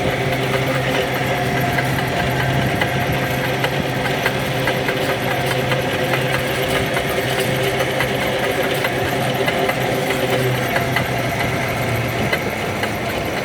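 Gasoline engine hauling a tarabita cable car, running with a steady hum that cuts off about twelve seconds in.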